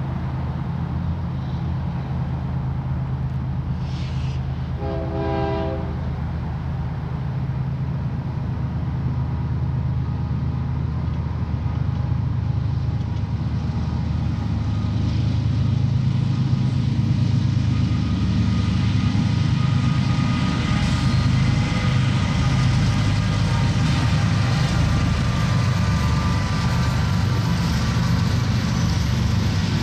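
Union Pacific diesel freight locomotives running at track speed with a steady low engine drone, a short horn blast about five seconds in, and growing louder from about the middle as wheel and rail noise builds with the approaching stack train.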